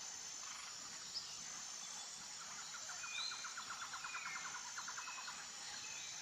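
Faint wild ambience: steady insect chirring with scattered short bird chirps, and a rapid trill of about eight pulses a second through the middle.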